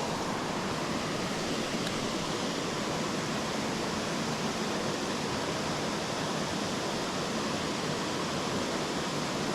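Creek water rushing steadily: an even, unbroken hiss that holds the same level throughout.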